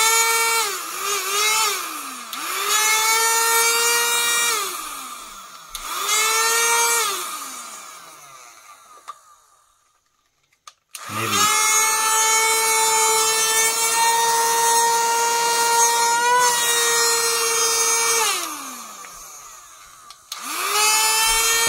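Cordless handheld car vacuum cleaner's motor running with a loud high whine, switched on and off several times. There are short runs, then one steady run of about seven seconds, and each time it is switched off the whine falls in pitch as the motor spins down. The owner finds it much noisier than expected and is unsure whether that is normal for the device.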